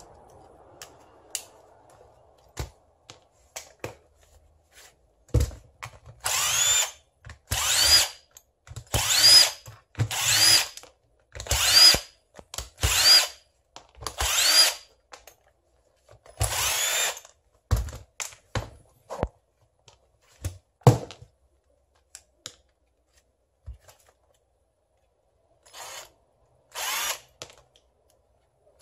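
Cordless driver spinning out the housing screws of a cordless hammer drill during disassembly, in short bursts of a second or less, each with a rising motor whine. There are about nine bursts in a row, then a pause with scattered clicks and clatter of screws and plastic parts, then two more bursts near the end.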